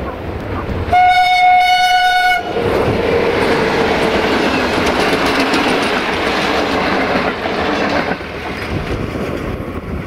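060-DA (LDE2100) diesel-electric locomotive sounding one steady horn blast of about a second and a half, then running past with its passenger coaches, wheels clattering over the rail joints. The noise drops off near the end as the train moves away, leaving wind on the microphone.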